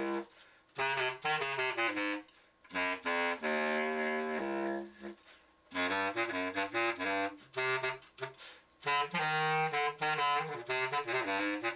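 Selmer bass clarinet being play-tested after an overhaul and repad: phrases of separate notes stepping up and down, with short pauses between phrases.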